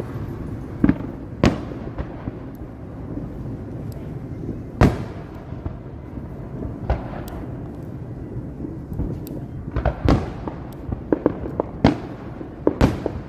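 Fireworks going off in irregular sharp bangs over a steady low rumble. The loudest bang comes about five seconds in, and a quicker run of bangs follows near the end.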